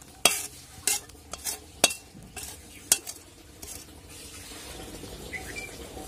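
Metal pan being scraped out and knocked with a utensil as thick, sticky raw mango chutney is poured from it into an aluminium bowl: about seven sharp scrapes and knocks in the first three to four seconds, then it goes quiet.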